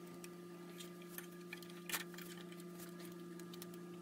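Scattered light clicks and taps from parts being handled, the loudest a little before two seconds in, over a steady low electrical hum.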